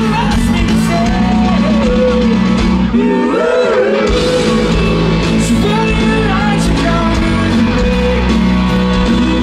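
A rock band playing live, with a singer over electric guitar and drums.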